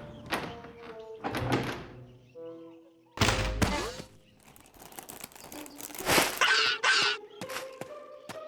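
Cartoon sound effects: a series of thumps and knocks, the heaviest about three seconds in and a quick cluster of them near the end, with a few held tones between them.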